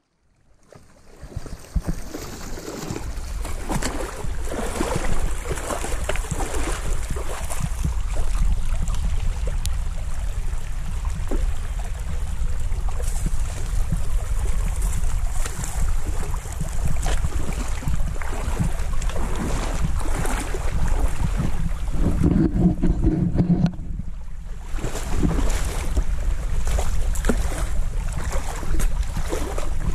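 Rushing river water, a steady watery hiss, with wind rumbling on the microphone.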